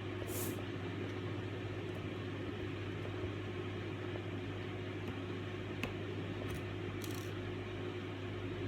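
Steady low hum of background noise, with a couple of faint clicks and a few short soft rustles.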